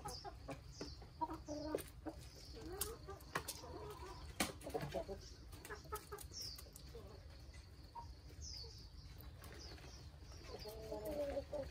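A flock of chickens clucking softly and giving short calls while feeding, with scattered sharp taps of beaks pecking at the food. A brief cluster of calls comes near the end.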